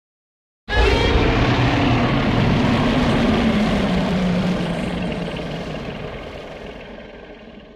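A Godzilla (Terrestris) sound effect: a loud rumbling noise that starts suddenly about a second in, carries a low tone sliding slowly downward, and fades away over several seconds.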